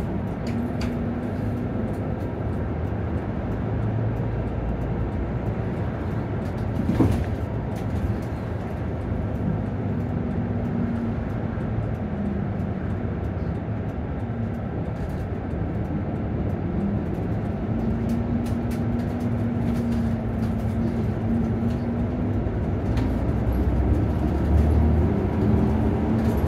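Inside a Nissan Diesel PKG-RA274MAN city bus on the move: steady diesel engine and road rumble, with the engine note strengthening and fading several times as the bus accelerates and eases off. A single sharp knock about seven seconds in.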